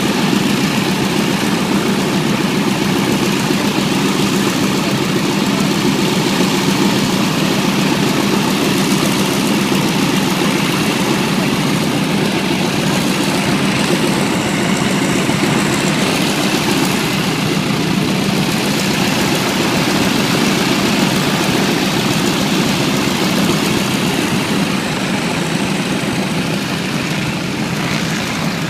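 A loud, steady engine drone with a constant low hum, easing off slightly near the end.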